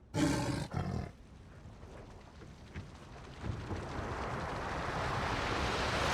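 A tiger's snarl in two short, loud bursts about a quarter second in, then the hiss of sea water and spray building steadily louder.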